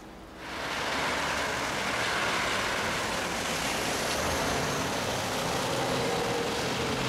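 Street traffic on a wet road: an articulated city bus driving past, with a steady hiss of tyres on wet asphalt that fades in about half a second in.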